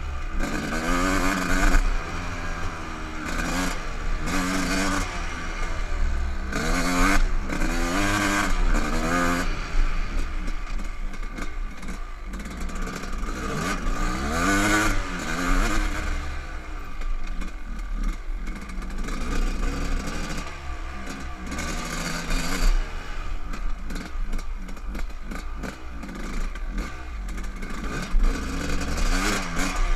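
Dirt bike engine revving up and down as it is ridden over a rough dirt trail, its pitch climbing and dropping again and again, with clatter and scraping from the bumps.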